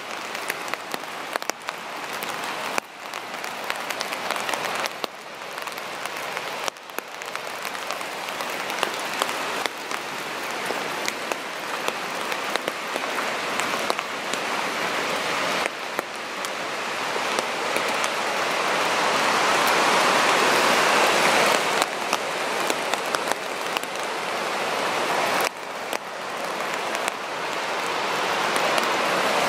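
Steady rush of a waterfall and river below the trail, swelling about two-thirds of the way through, with scattered crunching footsteps on a wet gravel and leaf-covered path.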